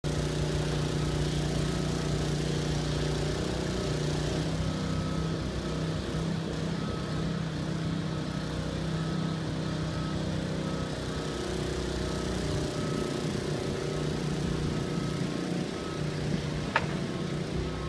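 Small engine-driven water pump running at a steady, even drone, pushing water through a flood discharge hose. One sharp click near the end.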